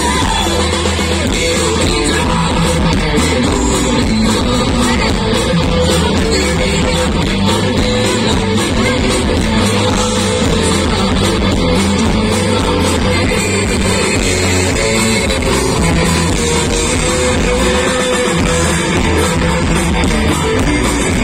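Live rock band playing loud amplified music with electric guitar, bass, drums and a singing voice.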